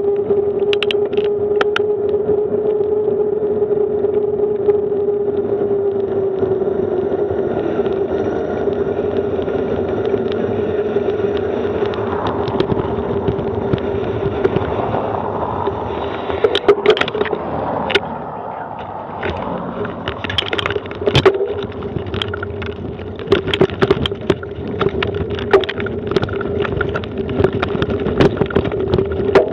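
Bicycle rolling along a road with a steady hum and rushing noise. From about halfway through, irregular knocks and rattles jolt in as the bike rides over cobblestone paving.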